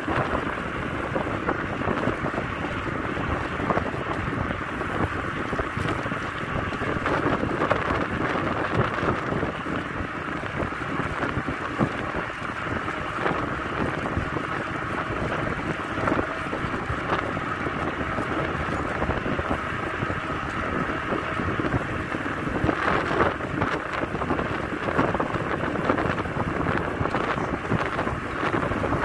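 Steady wind rushing over the microphone of a camera carried on a moving bicycle.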